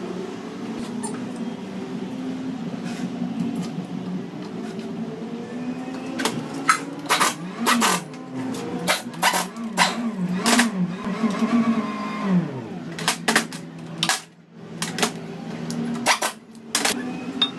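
Sharp clicks and knocks of hard plastic and metal parts being handled while a plastic cover is fitted to an engine, coming thick and fast from about six seconds in, over a steady low hum whose pitch dips now and then.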